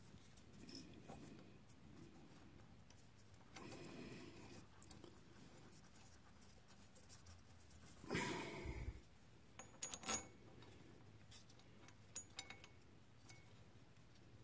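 Quiet metallic clinks and handling noise of bolts and hand tools being worked, as bolts are fitted for a cam-gear puller setup. A brief scuffing noise comes about eight seconds in and the sharpest clinks about ten seconds in.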